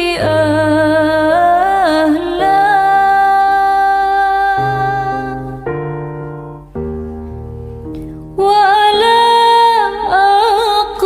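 A woman singing a slow, ornamented melody with long wavering held notes over soft keyboard accompaniment. The voice drops out for about three seconds midway, leaving only the keyboard, then comes back.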